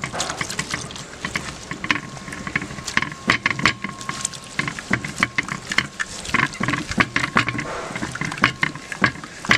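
Thick egg-and-flour batter being mixed by hand in a shallow metal bowl: irregular wet squishing and slapping with many sharp little clicks.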